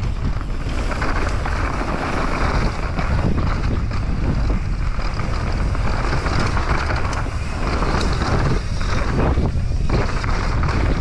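Mountain bike riding fast down a dirt trail: wind rushing over an action camera's microphone, with the tyres rumbling and the bike rattling over the rough ground.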